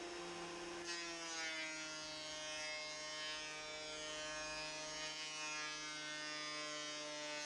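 Inline exhaust fan running as a dust extractor: a steady motor hum and whine with several pitched tones, which settles slightly lower about a second in.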